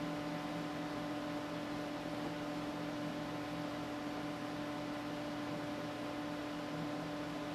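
Desktop computer's cooling fan running with a steady hum.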